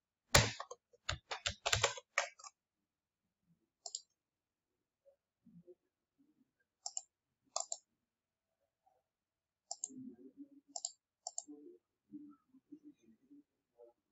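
Computer mouse and keyboard clicks: a quick run of clicks in the first two seconds or so, then scattered single clicks, with a few soft low knocks later on.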